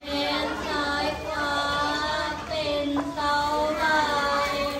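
A child singing a song in long, held notes.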